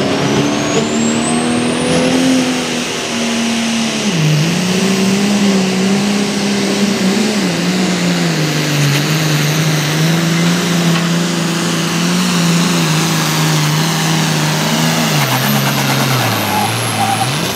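Light Limited turbo pulling tractor's 466 cubic inch engine running flat out under load while pulling a weight sled, with a high turbocharger whine that climbs over the first two seconds, holds, and falls away at the end. The engine note dips about four seconds in and again near the end.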